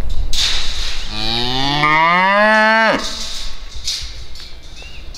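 A cow mooing once: one long call of about two seconds that rises in pitch and breaks off sharply. A bird chirps briefly near the end.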